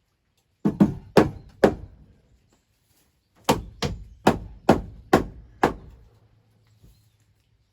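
Hammer blows on wooden framing, as in nailing trim in place: four sharp strikes, a pause of about two seconds, then six more at about two a second.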